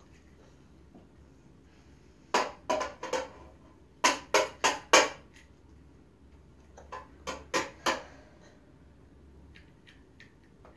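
Small hard toys being knocked together by a toddler: three quick runs of about four sharp clacks each, a second or two apart, with a few lighter taps between.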